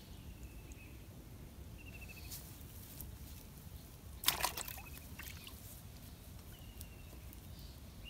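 A brief splash of water in a plastic bucket a little past halfway, as a freshly caught fish is dropped in, over a quiet outdoor background with faint chirping trills now and then.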